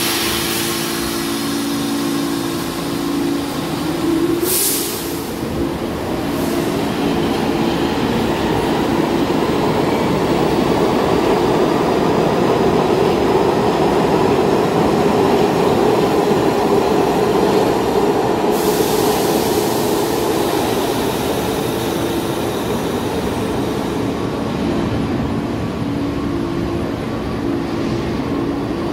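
New York City subway trains in the station: a steady low hum, then a broad rumble of wheels on rails that builds to a peak midway and eases off. A short hiss comes about four seconds in and a longer one around eighteen seconds.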